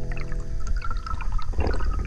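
Underwater water noise heard through a camera housing: bubbles gurgling and water rushing past, growing louder about one and a half seconds in as the last notes of a song die away.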